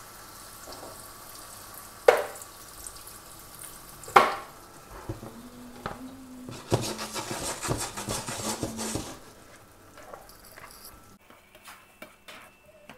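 Shrimp, peppers and tomato sauce sizzling in a frying pan after a splash of water. Two sharp knocks come about 2 and 4 seconds in, and a spatula then scrapes and stirs through the pan. The sizzle dies down near the end.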